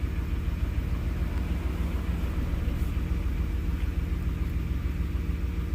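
Ford F-150 pickup's engine idling with a steady low rumble.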